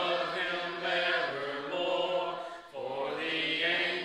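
A man preaching, his voice drawn out in long held syllables that come in phrases with short breaks between them.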